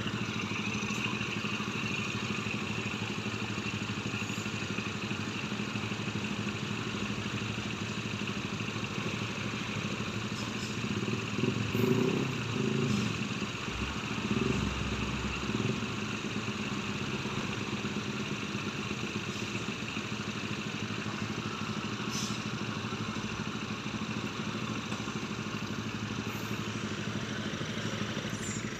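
Heavy cargo trucks' diesel engines running at low speed as they crawl around a tight bend, a steady engine hum. Partway through, the engine noise swells and rumbles louder for a few seconds.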